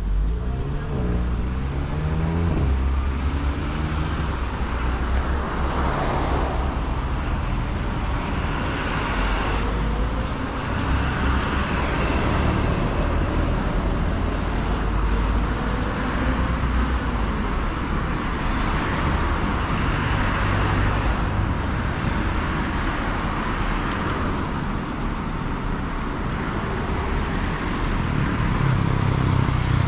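Busy road traffic: cars and trucks passing close by one after another over a steady low rumble. At the start one vehicle's engine rises in pitch as it accelerates.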